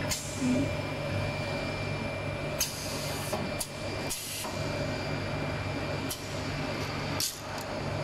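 Automatic syringe filling and plugging machine running: a steady machine hum broken by several short hisses of compressed air as its pneumatic cylinders and grippers cycle.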